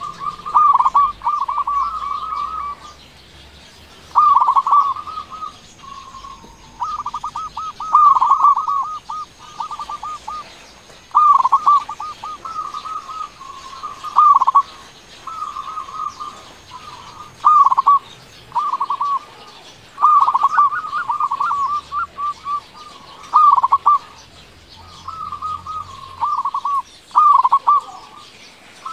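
Local zebra dove (perkutut) cooing its song: phrase after phrase of quick staccato coo notes, with short pauses between phrases.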